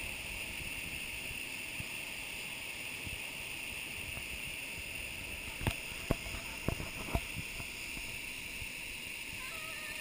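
Steady rush of a small waterfall pouring into a rocky pool, with a few sharp knocks a little past the middle.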